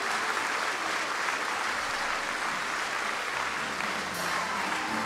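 Audience applauding steadily in a concert hall.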